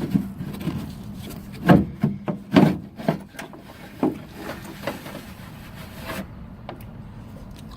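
Electrical wire rubbing and scraping as it is pulled through a hole in a truck hood, with a few sharp knocks, the loudest two about two seconds in, and quieter rubbing toward the end.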